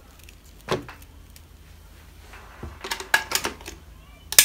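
Plastic mains power adapter and its cable being handled and plugged into a wall socket: a knock about a second in, a cluster of clicks and rattles from about two and a half seconds, then a single sharp click near the end, the loudest sound.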